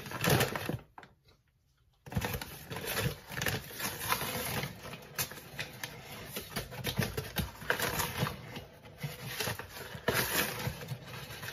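A paper bag of granulated sugar rustles and crinkles while sugar is scooped out with a cup: a dense run of small irregular crackles and scrapes. It drops out to silence briefly about a second in.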